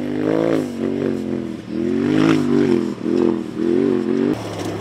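Rock bouncer's engine revving in repeated bursts, the pitch rising and falling with each blip of the throttle and breaking off between them, then dropping to a lower steady note near the end.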